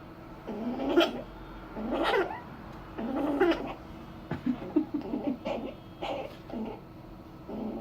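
A pet animal calling over and over. Its calls rise in pitch and come about a second apart, with a quick run of six or so short chirps around the middle and a few shorter calls near the end.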